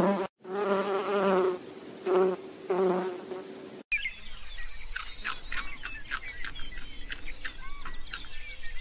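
Honeybees buzzing, a pitched hum that swells and fades a few times and cuts off about four seconds in. After that, small birds chirp in short notes over faint clicks and rustles.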